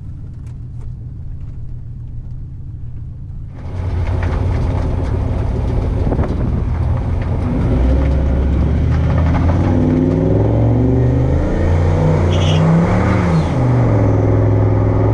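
Turbocharged GM 8.1 L big-block V8 truck engine running on the road, muffled at first inside the cab, then from about four seconds in heard from outside over the truck bed, louder and with a rush of wind. Toward the end the engine's pitch climbs, dips and settles.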